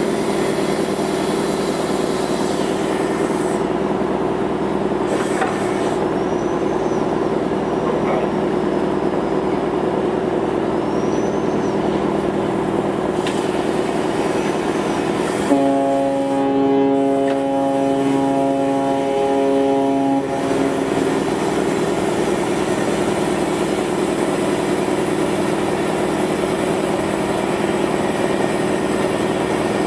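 Ferry's diesel engines and propellers running steadily as the ship pulls away from the quay, a constant low hum over churning water. About halfway through, a horn-like chord of several steady tones sounds for about five seconds, with a brief break in the middle.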